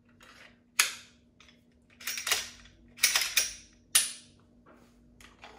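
Sharp plastic-and-metal clicks and clacks of a Glock 48 pistol and its magazine being handled, about six over four seconds.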